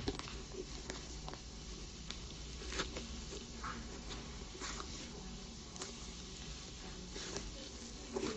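Faint handling noise of fingers on a leather sneaker: scattered soft rubs, taps and rustles over a low steady room hum.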